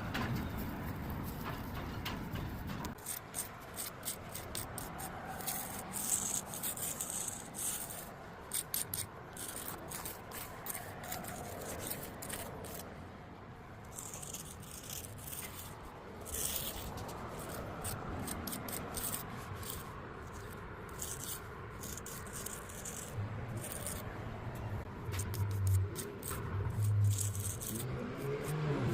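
Scattered scraping and rubbing sounds. An engine's low hum comes in during the last few seconds and rises in pitch near the end.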